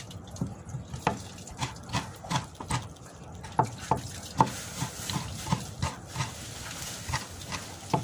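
Irregular light clicks and taps, a few a second, from hands handling chopped vegetables during food preparation at a table.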